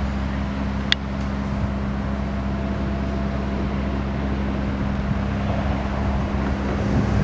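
Heavy diesel engine running at a steady drone, with a single sharp metallic clink about a second in.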